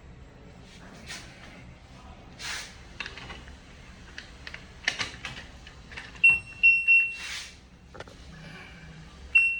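LG washing machine control panel beeping as its buttons are pressed: three short high beeps in quick succession about six seconds in and another near the end, among clicks and rustles from handling the machine.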